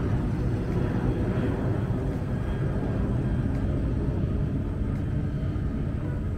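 Airliner taking off, a steady low rumble.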